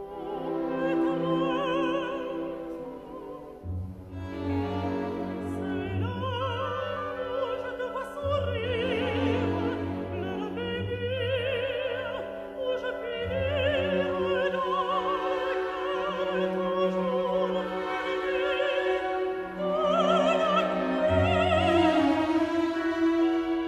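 Operatic singing with orchestral accompaniment: a voice with a wide, wavering vibrato over held string notes.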